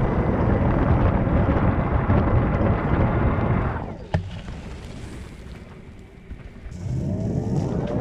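Wind rushing over the GoPro Fusion's microphone as it speeds along a Wiralcam motorised cable cam, together with the cable cam's electric motor. The rush drops away after a click about four seconds in. It comes back a little before the end with a rising motor whine as the cam speeds up again.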